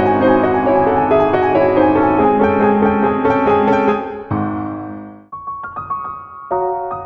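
Background piano music: a full run of chords, then a brief lull a little after four seconds in, then sparser, higher single notes.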